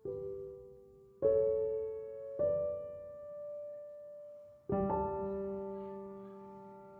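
Slow background piano music: soft chords struck four times, each left to ring and fade.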